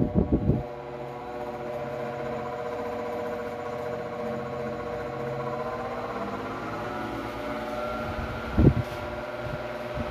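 Arge Twister 50 cm, 140 W wall fan running, a steady hum of motor and blades with several tones that drift upward in pitch a little past halfway. Its airflow buffets the microphone briefly at the start and again near the end.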